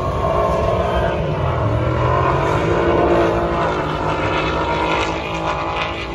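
Two cars racing down a drag strip under hard acceleration, engines at high revs. The engine noise is loudest about three seconds in, then fades as the cars pull away.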